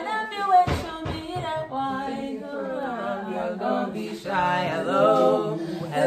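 Several women's voices singing a cappella, trying to hold a harmony, with a single sharp thump about a second in.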